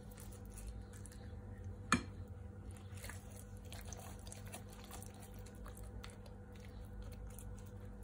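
Faint wet squishing and smacking of hands rubbing an oily spice paste into a raw whole chicken, with one sharp click about two seconds in.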